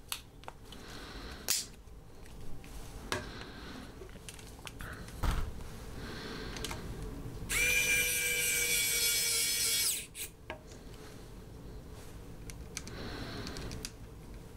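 A Wowstick cordless electric precision screwdriver's small motor whirs steadily for about two and a half seconds, then stops abruptly, as it drives a tiny screw down into a phone's frame. Before this there are a few light clicks and knocks from handling.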